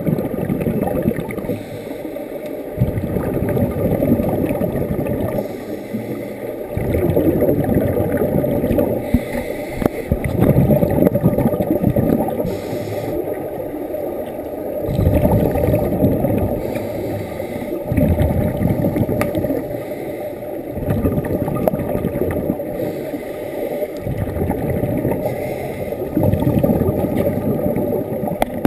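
Scuba regulator breathing underwater, muffled through the camera's waterproof housing: bursts of exhaled bubbles a couple of seconds long, every few seconds, with quieter spells between.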